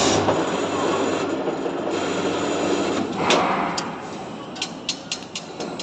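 Electric cutting machine for TMT steel rebar running with a steady low hum, surging a little after three seconds. A quick run of sharp metallic clicks and knocks follows near the end.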